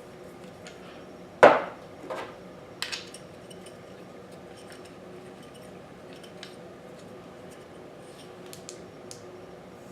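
Metallic clacks of a metal rebuildable dripping atomizer being set onto and threaded into an ohm reader to check the coil: one sharp click about a second and a half in, two lighter ones soon after, then faint scattered ticks.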